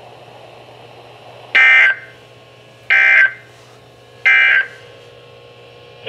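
Three short bursts of digital data tone, about a second and a quarter apart, from a NOAA weather radio's speaker: the EAS/SAME end-of-message code that closes the tornado warning broadcast.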